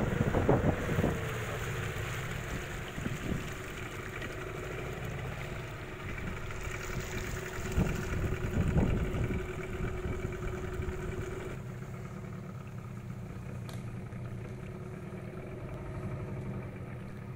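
Motor of a small river taxi boat running steadily on the water. About twelve seconds in, its higher note drops out and the sound grows duller.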